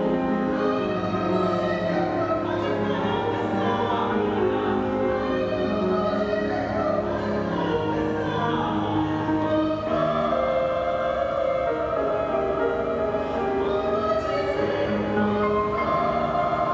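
A woman singing in classical lyric style with piano accompaniment, holding long notes with vibrato.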